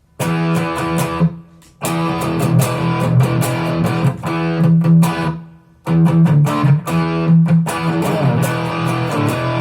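Electric guitar strummed through a Zoom G5n multi-effects unit on an overdriven crunch patch, a Tube Screamer-style overdrive followed by a boost. The chords come in three phrases, with two short breaks where the sound cuts off.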